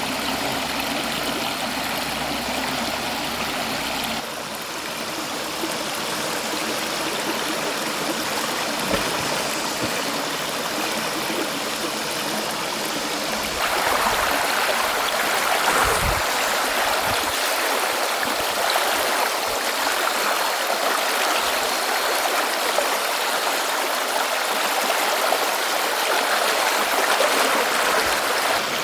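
Mountain stream water flowing over rocks, a steady rushing and gurgling that gets louder and brighter about halfway through.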